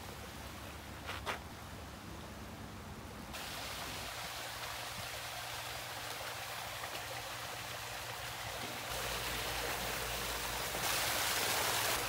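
Steady splashing, trickling water, stepping louder at a few points and loudest near the end, where a small rock waterfall pours into a koi pond. A brief sharp sound about a second in.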